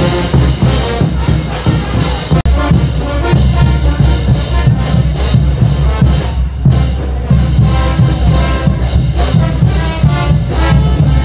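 Brass band with trumpets, trombones and heavy drums playing dance music. It drops out for an instant about two and a half seconds in.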